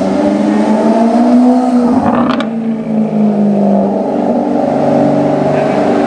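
Maserati GranTurismo's V8 through an aftermarket Fi Exhaust, running loud at fairly steady low revs, with a brief sharp crackle about two seconds in.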